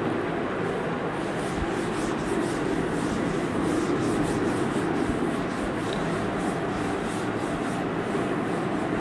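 Chalkboard duster rubbing across a blackboard in a run of repeated wiping strokes, over a steady background rushing noise.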